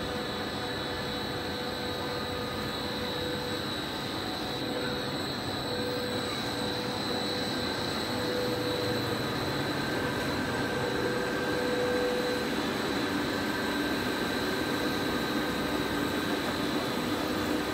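Plastic extrusion line for corrugated PVC roofing tiles running: the extruder's electric drive motor and gearbox give a steady machine noise with a constant high whine, and a lower hum that comes and goes.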